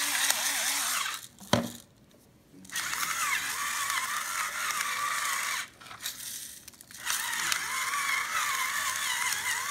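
Electric salt grinder whirring, its motor pitch wavering slightly, stopping twice for about a second and a half each time, with a short click in the first pause.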